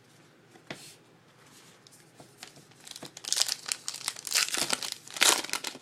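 A trading card pack wrapper being torn open and crinkled: a faint tap early, then from about three seconds in a run of crisp crinkling and tearing.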